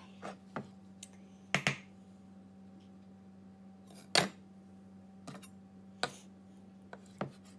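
Chef's knife slicing a cooked chicken breast on a wooden cutting board: irregular knocks of the blade on the board, the loudest about four seconds in, over a faint steady hum.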